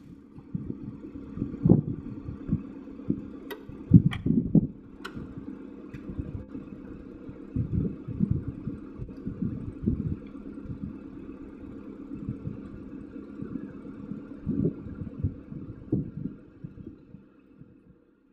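Wind buffeting the camera microphone over a steady low mechanical hum, with a few sharp clicks about four to five seconds in.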